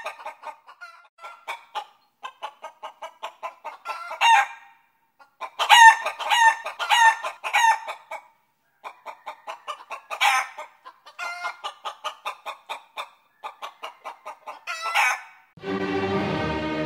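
A chicken clucking in quick runs of short clucks, with louder, drawn-out squawks among them. Near the end orchestral music comes in.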